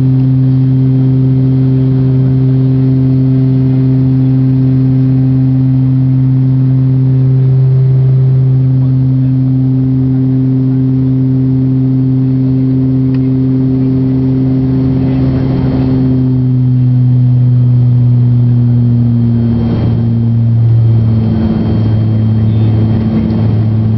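Inside the cabin of a Dornier 328-110 in the climb: its Pratt & Whitney PW119B turboprop engine and propeller drone with a steady low hum and overtones. The drone steps slightly lower in pitch about two-thirds of the way through.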